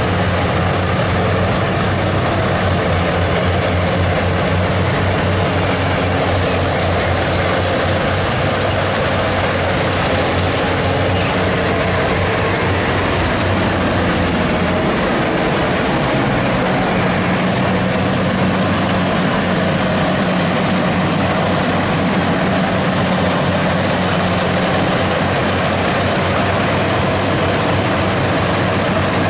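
Rice combine harvester's diesel engine running steadily, a loud, even mechanical hum; about halfway through, its note shifts and then settles again.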